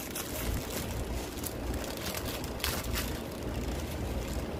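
Clear plastic packaging crinkling and rustling in irregular bursts as hands handle a bundle of small bags of diamond-painting drills.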